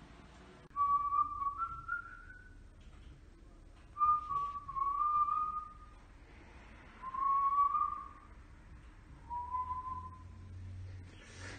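A man whistling: four short phrases of one or two held notes each, with pauses between them, the first stepping up in pitch and the last lower and shorter.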